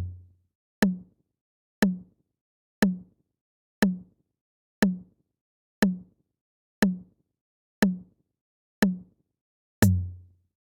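Countdown timer sound effect: a short knocking tick once a second, each with a brief low ring that dies away. About ten seconds in, as the count reaches zero, comes a heavier hit with a short deeper hum.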